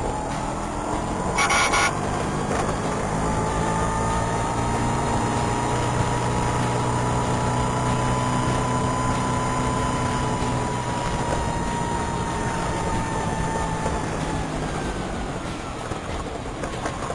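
Vespa scooter running with a siren-like whine that rises slightly, holds for about twelve seconds and then fades, over the low engine note. A brief loud blast sounds about a second and a half in.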